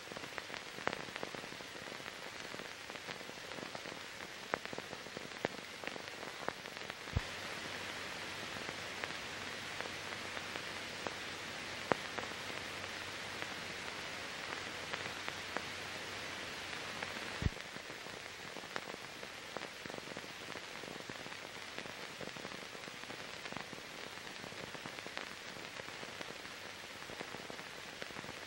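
Steady hiss with scattered clicks and pops, the surface noise of a silent archive film transfer with no recorded sound. The hiss grows a little louder for about ten seconds in the middle, set off by a sharp click at each end.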